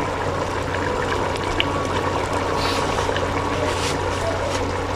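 Large pot of biryani rice and water boiling hard over the stove flame: a steady rushing bubble with faint pops. This is the rolling boil just before the pot is sealed for dum.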